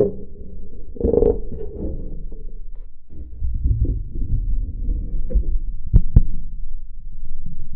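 The sheet-metal body of an old rusted truck being handled and knocked, heard through a geophone contact microphone: low, dull thuds and rumbling resonance with a brief ringing tone about a second in, and two sharp knocks close together about six seconds in.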